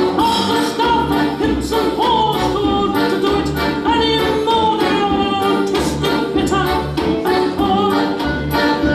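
Music: a wavering melody line over pitched accompaniment with a steady beat.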